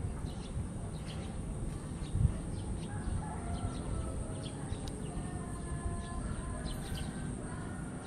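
Outdoor ambience: a steady low rumble with short high chirps throughout, and from about three seconds in a drawn-out, wavering bird call in several tones. A single sharp thump comes a little after two seconds.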